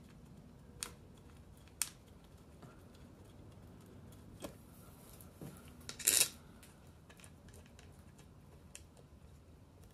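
Faint small metallic clicks and ticks as the small bolts are threaded by hand into the distributor cap and its aluminium housing. Two sharp clicks come in the first two seconds, and there is a short, louder hissing noise about six seconds in.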